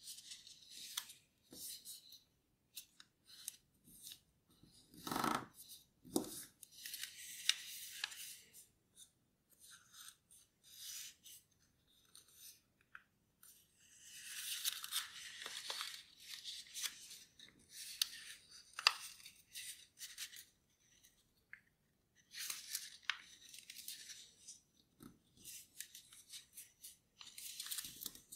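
Sheet of origami paper rustling and crackling as it is folded and pressed into creases by hand, in short irregular bursts with quiet gaps between.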